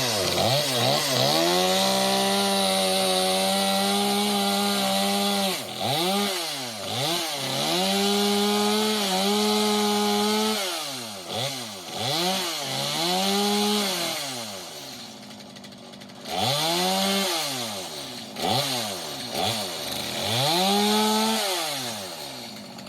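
Stihl chainsaw cutting into a split, storm-damaged tree trunk, its two-stroke engine held at full throttle for a few seconds at a time, then dropping back and revving up again several times with short throttle blips in between.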